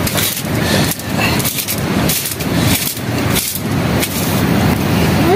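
Rushing stream or river water, a loud steady wash that swells and dips, with a short rising squeak near the end.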